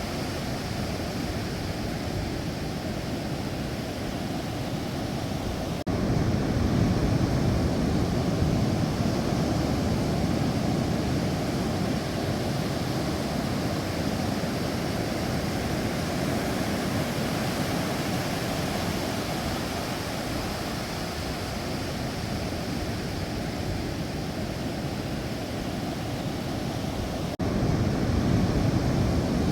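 Sea waves washing on the shore, a steady rushing noise. The level jumps up suddenly about six seconds in and again near the end.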